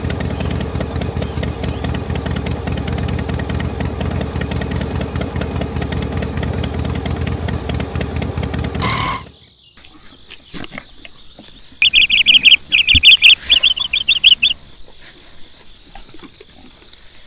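Power tiller engine running steadily with a fast, even beat, cutting off suddenly about nine seconds in. A few seconds later a bird chirps in a quick, loud run for about two and a half seconds.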